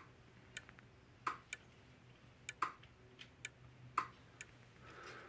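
AgriOtter 2-joule electric fence energizer pulsing: a series of sharp, not very loud ticks, the stronger ones a little over a second apart with fainter ticks between them.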